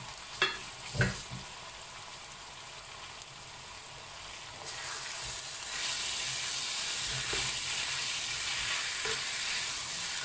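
Chicken pieces sizzling in spice paste in a wok while a spatula stirs and scrapes them. Two sharp knocks in the first second or so, then the sizzling and stirring grow louder about five to six seconds in.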